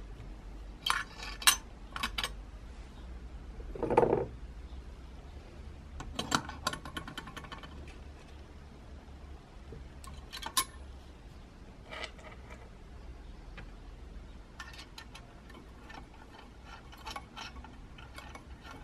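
Small steel parts (nuts, washers and the metal handle bracket) clinking against the chrome-plated body of an antique electric iron as it is put back together: scattered light metal clinks in little clusters, with one duller scrape about four seconds in.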